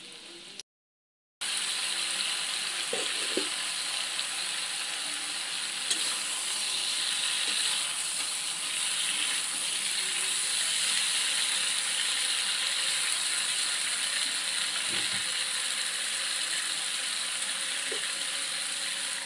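Potato and eggplant pieces frying in oil in a metal kadai: a steady loud sizzle that starts after a short silent gap about a second in. A metal spatula knocks and scrapes against the pan a few times as the vegetables are stirred.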